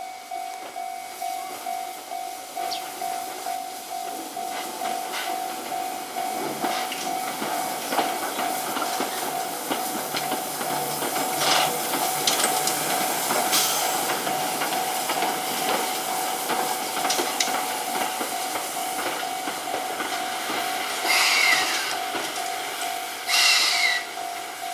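C58 steam locomotive hissing steam as it moves slowly during yard shunting, with a slow rhythmic beat in the first few seconds and a steady tone throughout. Two louder hissing blasts come near the end.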